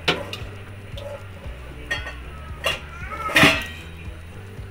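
Metal utensils clinking and knocking against dishes while kadhi is ladled into a glass serving bowl: about five sharp clinks, the loudest about three and a half seconds in, over a steady low hum.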